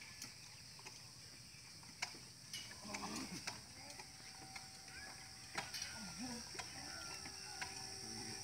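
Faint outdoor ambience: distant children's voices in short snatches, a few sharp clicks, and a steady high hiss underneath.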